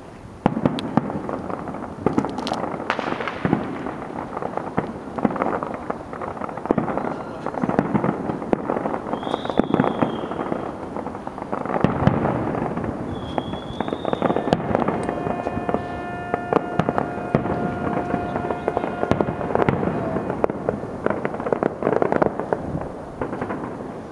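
Fireworks display: a dense, continuous barrage of shell bursts and crackling. Two short high whistles come near the middle, and then a held tone with overtones lasts for about five seconds.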